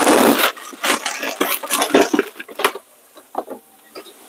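Kitchen handling sounds: a loud scraping rustle, then a string of sharp knocks and clatters from utensils and containers on the counter and pan.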